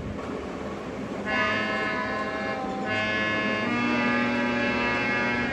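Harmonium reeds sounding held notes as the bellows are pumped by hand. The notes are soft at first, come in louder about a second in, and change twice more. It is a beginner's slow practice on the instrument.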